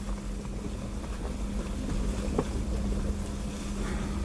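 2016 Jeep Wrangler Rubicon's 3.6-litre V6 running steadily at low speed on a rough dirt trail, a constant hum over a low rumble, with a few small knocks and rattles from the vehicle.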